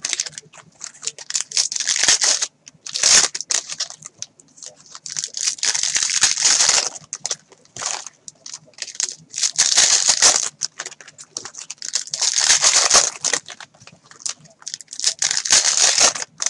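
Foil trading-card pack wrappers being torn open and crinkled by hand, in bursts of a second or so with short pauses between.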